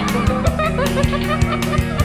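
Rock music with a steady drum beat, with a person laughing over it.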